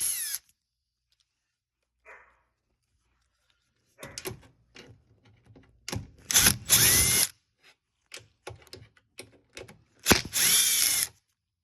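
Power drill-driver backing out screws on a dishwasher's front cover panel: two short runs of the motor whining up and down in speed, one about six seconds in and one near the end, with clicks and knocks of handling in between.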